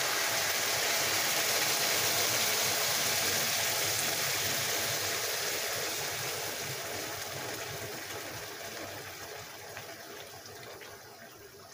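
Freshly boiled water poured from a stainless steel kettle into a pot of toasted rice and vermicelli on the stove, a steady rushing pour that fades gradually over the second half. This is the water being added to cook the pilaf.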